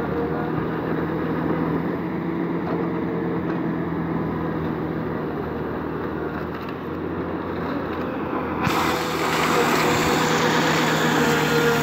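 Caterpillar 953 track loader's diesel engine running steadily. Near the end a loud, harsh hiss comes in abruptly and stays over the engine.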